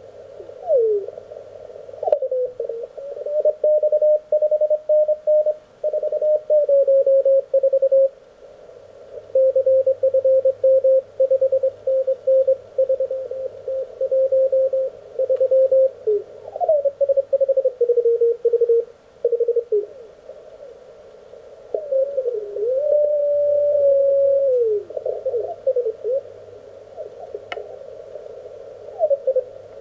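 Morse code (CW) signals heard through an Elecraft K1 transceiver's receiver as the dial is tuned across the band through the narrow filter: keyed beeps from several stations, their pitch sliding up or down as each is tuned past.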